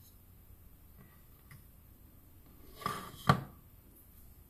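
Hands handling a cardboard box and a plastic figure: a few light ticks, then a short scraping rustle nearly three seconds in, followed right after by a sharp click, the loudest sound.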